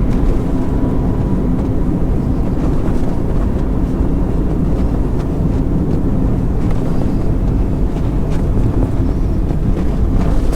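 Car driving slowly with the windows down: a steady low rumble of engine and tyres, with some wind noise.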